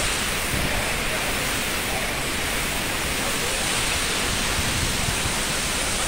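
Dudhsagar waterfall rushing steadily: a constant, unbroken noise of heavy falling water.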